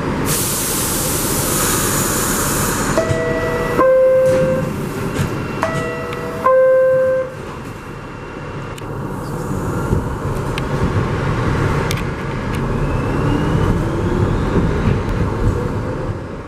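Inside a New York City subway car, a burst of air hiss is followed by the car's two-note descending door chime, which sounds twice. The train then runs with a steady rumble and a faint rising motor whine as it picks up speed.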